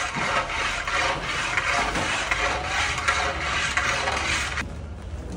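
Long metal stirring rod scraping round the bottom of a large karahi of milk being reduced for mishti doi, in repeated rasping strokes. The scraping stops about four and a half seconds in.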